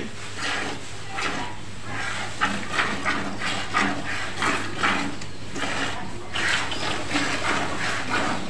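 Cow being milked by hand: squirts of milk hissing into a plastic bucket part-filled with milk, an even rhythm of about two to three squirts a second.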